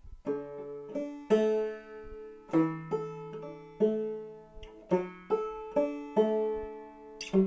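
Five-string banjo in double D tuning played clawhammer style: a bouncy phrase of sharply plucked notes, with the open strings left ringing under the melody.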